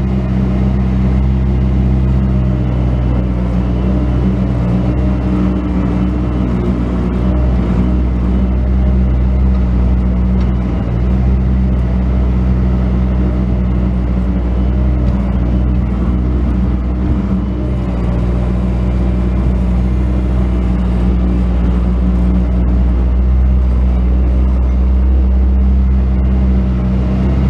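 Bobcat S185 skid steer loader's diesel engine running steadily and loud, with small rises and dips in pitch as the machine works.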